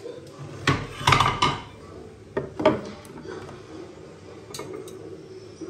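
Bamboo cutting boards being set down and shifted on a granite countertop: a few sharp wooden knocks and clatters in the first three seconds, then only faint handling.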